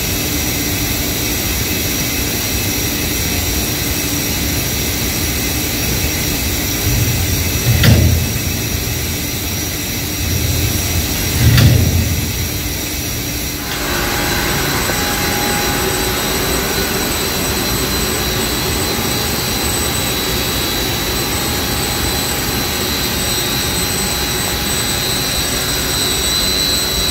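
Steady roar of building ventilation and air-handling equipment, with a few faint steady whines over it. Two brief low bumps come about eight and eleven and a half seconds in, and the mix of whines shifts a little about fourteen seconds in.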